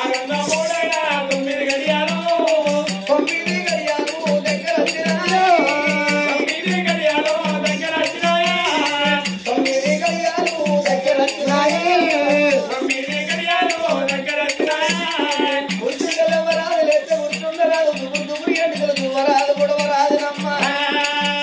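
Telangana oggu katha folk music: a wavering sung melody over a steady low beat about twice a second, with jingling rattle-like percussion.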